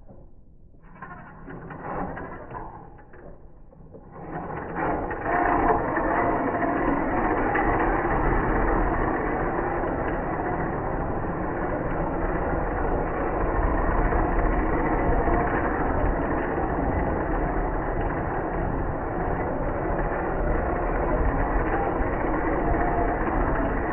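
Small RC drift truck running, its electric motor and drivetrain whirring steadily. The whir starts about four seconds in, after a quieter stretch.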